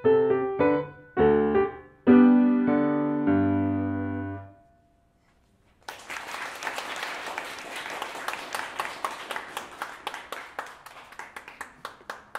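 Steinway grand piano playing the closing chords of a piece, the last low chord held and fading out about four and a half seconds in. After a pause of about a second and a half, an audience claps.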